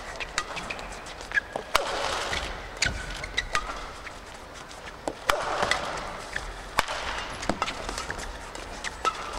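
Badminton rally: rackets strike the shuttlecock with sharp hits about once a second, and shoes squeak briefly on the court floor between the shots.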